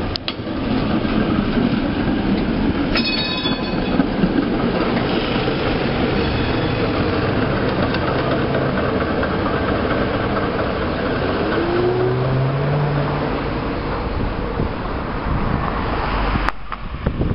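A PCC streetcar running along its rails, a steady rolling noise, with a brief high ringing about three seconds in.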